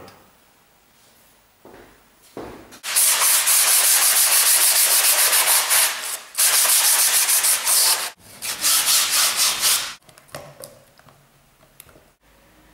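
Sandpaper rubbed by hand over a stretched, glued canvas, sanding its surface smooth before priming. It comes in three runs of quick back-and-forth strokes. A few faint knocks follow near the end.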